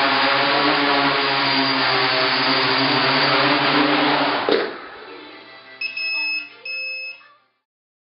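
Quadcopter's electric motors and propellers running with a steady, dense whir, then about four and a half seconds in it sets down on the floor with a knock and the motors wind down. Two short electronic beeps follow.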